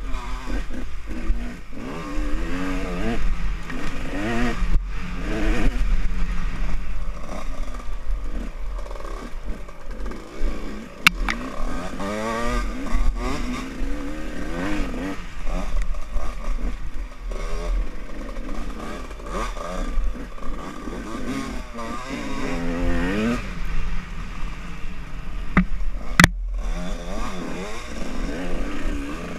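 Off-road dirt bike engine revving up and down on a rough trail, its pitch rising and falling again and again, with rattling from the bumpy ground. Two sharp knocks stand out, about 11 seconds and 26 seconds in.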